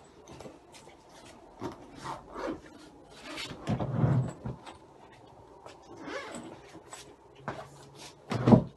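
Bedding rustling and rubbing as a sheet is smoothed and tucked over a mattress, with scattered knocks, a louder burst of handling about four seconds in and a heavier thump near the end.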